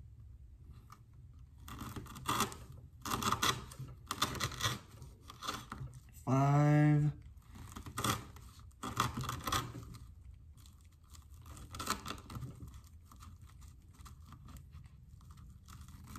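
A Benchmade Mini Crooked River knife with an S30V blade sawing through 3/4-inch manila rope on a wooden board: short rasping, fibrous tearing strokes in clusters with pauses between. About six seconds in a person hums briefly, the loudest sound in the stretch.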